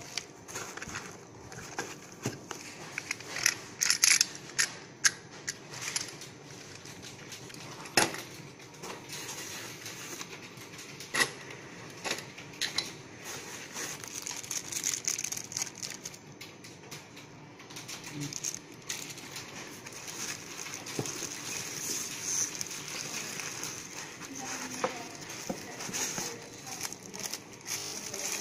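Handling sounds of unpacking: sharp clicks and knocks of parts and the cardboard box being handled, then a steady rustle and crinkle of the camera's soft plastic wrapping being pulled and crumpled through the second half.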